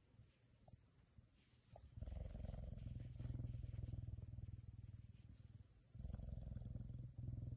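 Caracal purring while suckling on a person's thumb, a low rapid rumble. It is faint at first and grows loud about two seconds in, with short breaks near six and seven seconds.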